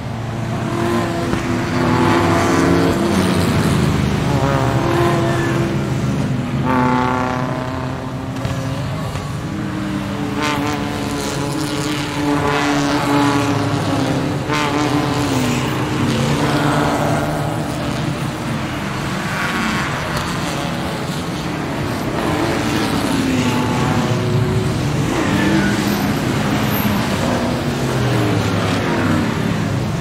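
Ferrari Formula One car engines revving in the pit lane, the pitch climbing and falling again and again with several engines overlapping.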